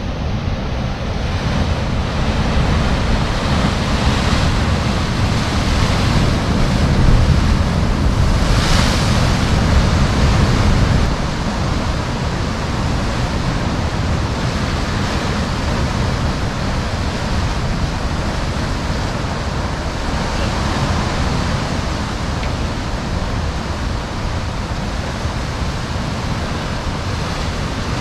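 Sea waves breaking and washing, with wind rumbling on the microphone. The surf grows louder through the first ten seconds, with one brighter splash about nine seconds in, and eases about eleven seconds in.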